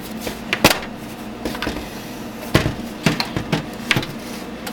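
Computer case's plastic front panel being pressed back onto the metal chassis: several separate sharp clicks and knocks as it snaps into place.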